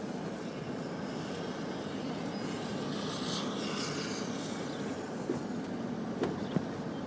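Road and engine noise heard inside a moving car, a steady rumble, with a hiss that swells about three seconds in and a few light knocks near the end.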